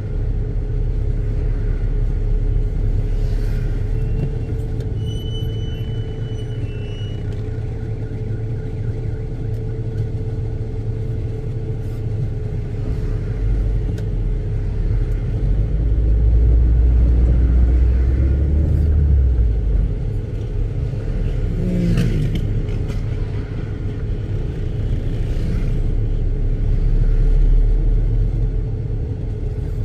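Car driving in city traffic: a steady low rumble of engine and tyre noise that swells for a few seconds past the middle, as if under acceleration. A brief pitched sound comes about two-thirds of the way through.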